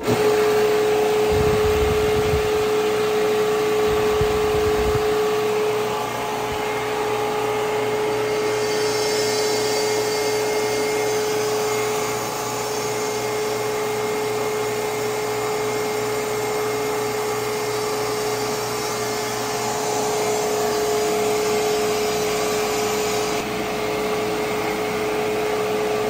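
Vevor portable refrigerant recovery machine starting up and running steadily on slow recovery, its compressor pumping refrigerant out of an air-conditioning system into a recovery tank, with a constant humming tone. A higher hiss joins in from about eight seconds in until near the end, and a couple of low thumps come in the first few seconds.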